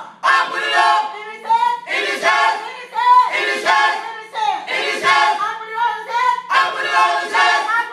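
Small mixed group of women and men singing a gospel song into microphones, phrase after phrase with short breaks between them.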